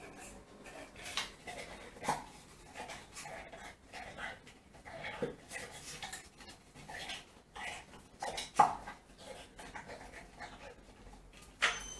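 Staffordshire Bull Terrier panting and nosing at the hopper of an iFetch automatic ball launcher, with scattered clicks and knocks of nose and teeth on the plastic. A sharper knock comes near the end, and a thin steady whine starts right after it.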